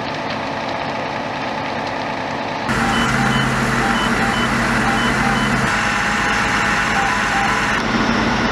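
Fire engine running steadily close by, with a short high electronic beep repeating about twice a second for a few seconds; before that a quieter steady rumble.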